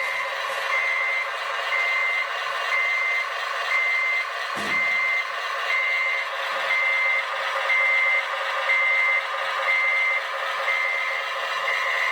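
Reversing beeper on a scale RC construction vehicle, beeping steadily about once a second over the machine's steady running sound, with one short low thump a little before halfway.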